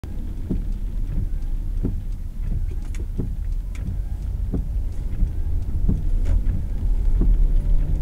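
Low, steady road and engine rumble heard from inside a moving car, with scattered sharp taps every half second or so.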